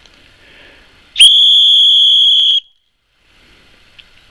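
One loud, steady, high-pitched blast of about a second and a half from the small survival whistle built into a five-in-one match holder multitool, starting sharply and cutting off abruptly.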